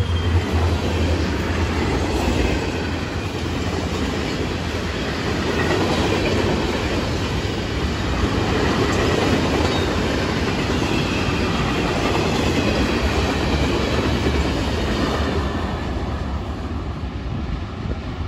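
Freight train flatcars loaded with concrete blocks rolling past close by: a steady rumble and clatter of steel wheels on the rails. The diesel locomotives' low drone fades in the first second or so, and the sound eases in the last couple of seconds as the train moves away.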